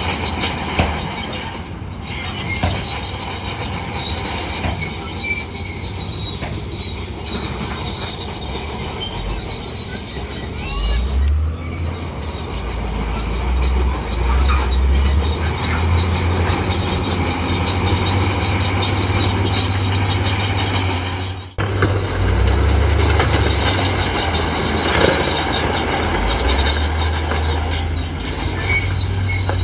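Bulldozer at work: its diesel engine rumbling low while the steel tracks squeal and clank. The sound drops out abruptly for a moment about two-thirds of the way through.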